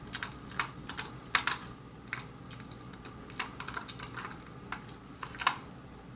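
Irregular small clicks and taps of a Phillips screwdriver and metal lock parts being handled while a mortise lock cylinder is taken apart. The clicks come unevenly, with the sharpest about a second and a half in and near the end.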